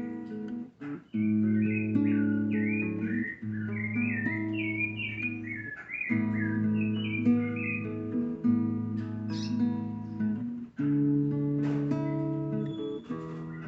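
Acoustic guitar worship music with birds singing over it: a run of quick, warbling chirps in the first half that return near the end.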